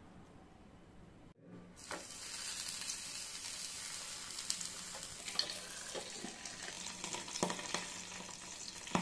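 Banana-leaf-wrapped fish parcel sizzling in oil in a frying pan: a steady crackling hiss with scattered pops, starting about a second and a half in after a quiet opening.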